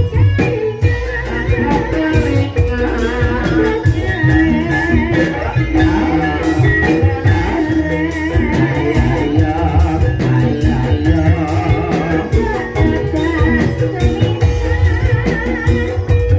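Live gending ebeg music from a Banyumasan gamelan ensemble, with drums and struck metallophones playing a dense, steady rhythm.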